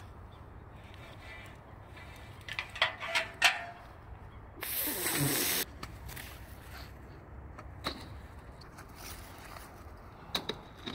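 A magnet-fishing magnet on its rope being handled and thrown out: a few sharp knocks and rope clicks, then a loud rushing whoosh for about a second near the middle.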